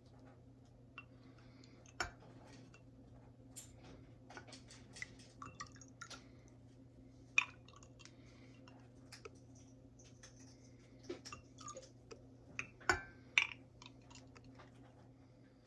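Light handling noises of a plastic measuring scoop and small glass jars: scattered clicks, taps and small wet sounds as liquid is scooped and poured, the sharpest about 7 seconds in and again near 13 seconds. A steady low hum runs underneath.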